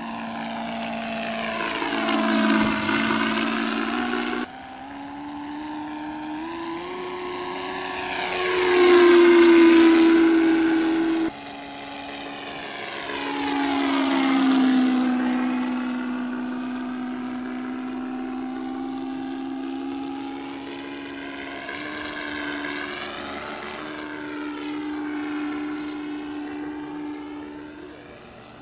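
Simulated Rolls-Royce Merlin engine sound from a Benedini sound system on a radio-controlled P-51 Mustang model in flight, played through overdriven, saturating speakers, so it sounds distorted. The engine note climbs and falls with throttle and swells as the model passes, with two abrupt drops in level.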